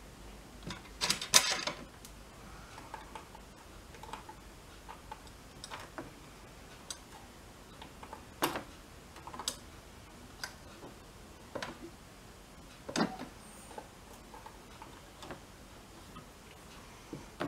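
Scattered light clicks and taps of a metal hemostat and a circuit board being handled, with a louder cluster of knocks about a second in.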